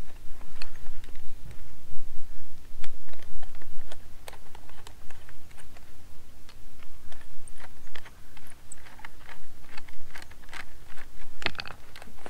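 Hand tools and small metal hardware clicking and tapping irregularly as old pipe clamps and fittings are worked off an antenna's centre mast. The clicks are light and uneven, with a louder cluster near the end.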